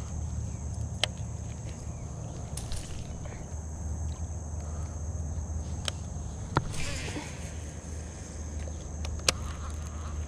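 Baitcasting reel being cranked to retrieve a lure, giving a low steady whir with a few sharp clicks. A steady high-pitched buzz sits behind it.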